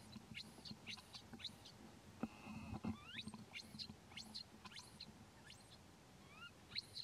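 A baby macaque giving faint, short high-pitched squeaks, two or three a second.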